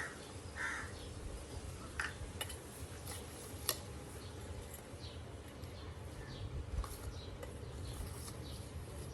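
Scattered light clicks, small knocks and short scrapes of kitchen handling, such as pickle ingredients being moved in a bowl, over a low steady hum.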